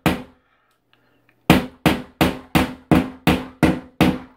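Hammer tapping a small nail into a drywall clip anchor for a wire shelf, in quick, even strikes about three a second. One strike, a pause of about a second, then a steady run of about nine more taps.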